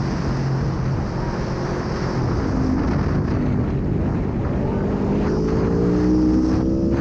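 Aprilia Tuono V4 1100 motorcycle's V4 engine running under way, with wind noise on the microphone. Over the last two seconds the engine pitch climbs steadily as the bike accelerates.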